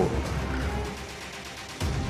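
Film score music, thinning and getting quieter through the middle, then a sudden loud hit near the end.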